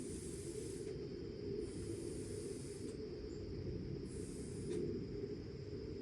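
Three short hisses, each about a second long and a little over a second apart, over a steady low rumble.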